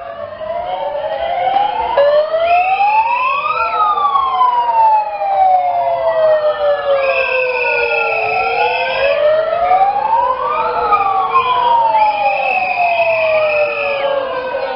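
Several wailing sirens sound at once, each rising and falling in pitch out of step with the others. A steady high tone cuts in three times for a second or two.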